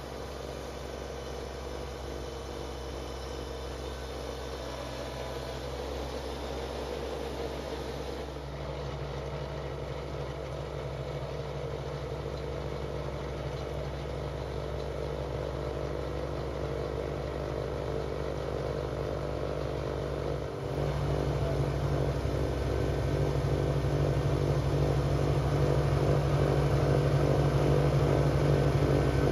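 Kubota BX sub-compact tractor's diesel engine running steadily while its front-mounted BX2822A snowblower throws snow, growing louder as the tractor approaches, with a sudden step up in level about two-thirds of the way through.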